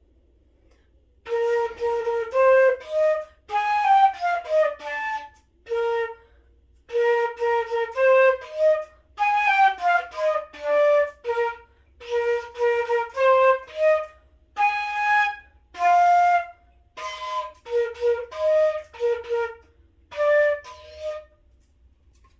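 Solo flute playing a melody in short phrases of quick notes separated by brief pauses, with no accompaniment. The playing stops near the end.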